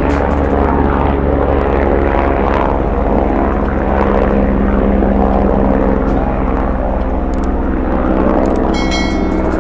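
Steady propeller drone over an even low hum, with a brief cluster of high tones near the end.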